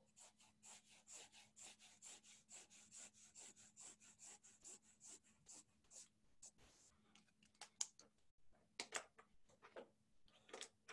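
Faint quick scribbling of a marker on paper as a drawing is coloured in, about five strokes a second. It stops about six seconds in, and a few sharper taps and scratches follow.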